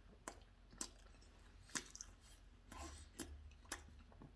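A person chewing a breaded chicken sandwich: a few faint, sharp smacking clicks spread over a few seconds.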